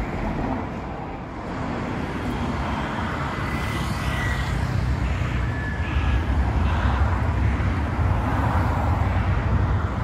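Road traffic on a city street: cars passing with a steady low rumble that grows louder in the second half, and a couple of faint, brief high squeals in the middle.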